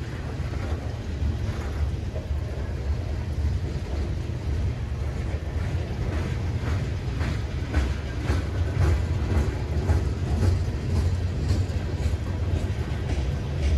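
Freight cars rolling past close by: a steady low rumble of wheels on rail, with a run of sharp wheel clicks and clanks from about halfway through.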